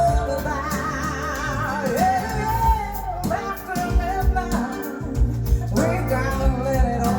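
Recorded rock song playing: a voice sings long wavering notes over a steady drum beat and bass.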